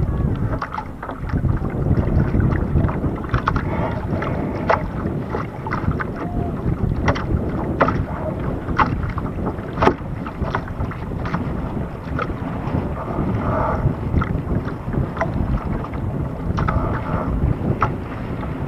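Wind rumbling steadily on the microphone of a camera on a dinghy's bow, with choppy water slapping against the hull in irregular sharp knocks.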